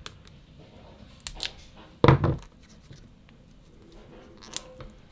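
Plastic shrink-wrap on an 18650 lithium-ion cell being snipped with small cutters and peeled back by hand: a few short snips and crackles, the loudest about two seconds in.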